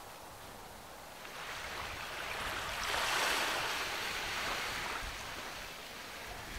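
Ocean surf on a beach: one wave surges in, swelling to its loudest about three seconds in, then fades away.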